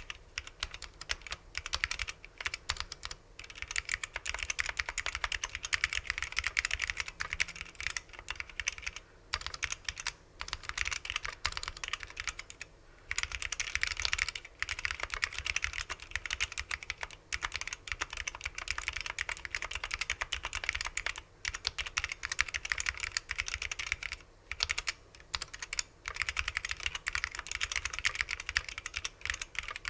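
Typing on a mechanical keyboard with unlubricated vintage SKCL Yellow Alps switches on a 1.2 mm aluminium plate in a gasket-mount case: a dense run of keystrokes, broken by short pauses every few seconds.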